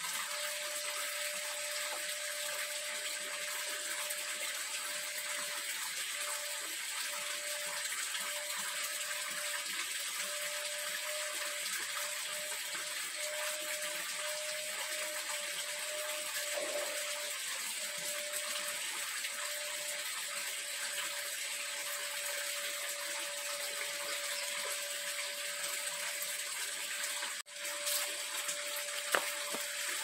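Steady rushing hiss with a faint constant tone beneath it, broken by a brief dropout about 27 seconds in.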